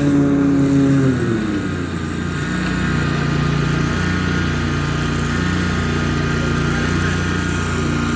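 Petrol lawn mower engine running. Its pitch drops about a second in, then it holds a steady speed.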